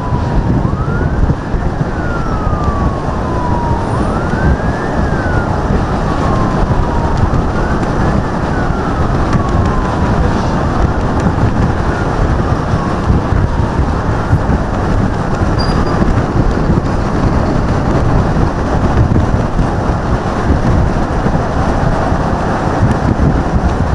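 Motorcade siren wailing, sweeping slowly up and down about four times and fading out about halfway through, over loud, steady road and wind noise from a fast-moving vehicle.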